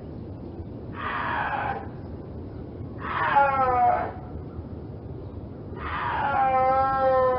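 Three high, drawn-out animal calls: a short one, then one that falls in pitch, then a long wavering call that is still sounding at the end.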